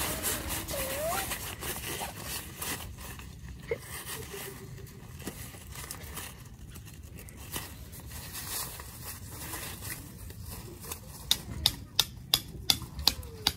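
Nylon tent fabric rustling and crinkling as a tent's window flap is handled and rolled up. Near the end comes a quick run of sharp clicks, about four a second.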